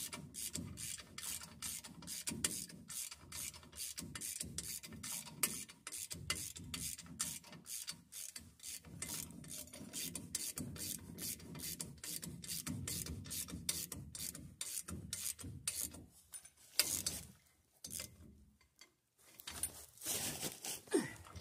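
Hand ratchet wrench clicking steadily, about three to four clicks a second, as a nut on the truck's front steering linkage is run down; it pauses briefly and starts again near the end.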